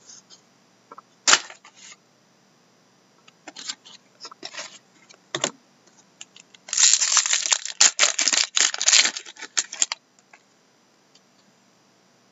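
Hockey trading cards and a pack wrapper being handled: scattered clicks and rustles, then about three seconds of dense crinkling in the second half as a pack is worked open and the cards are pulled out.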